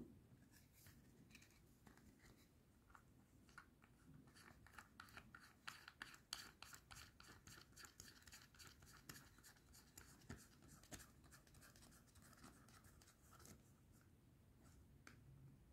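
Faint scratching and small clicks of a plastic trunk-button housing and its round switch being handled and pressed into place by fingers, with a dense run of quick ticks through the middle.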